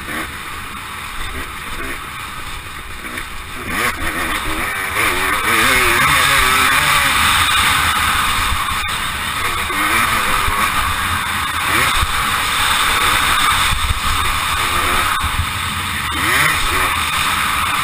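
Motocross dirt bike engine running under throttle, its pitch rising and falling as the rider revs it and shifts, heard through a helmet camera.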